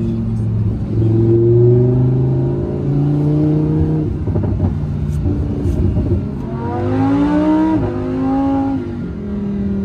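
Lamborghini Huracán's V10 engine heard from inside the cabin while driving. The revs hold fairly steady at first, then about two-thirds of the way in they climb steeply through a gear, drop at the upshift and climb again.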